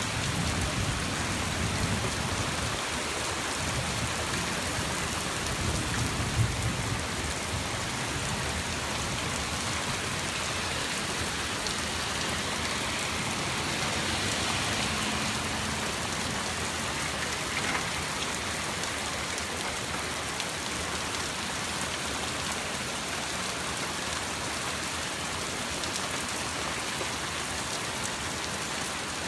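Steady rain falling, with a low rumble of thunder in the first several seconds that fades away.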